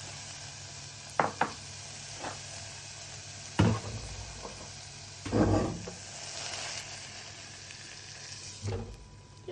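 Sauce sizzling in a frying pan, broken by several sharp knocks and clatters of a utensil against the pan. The sizzle dies down near the end, the heat under the pan having just been switched off.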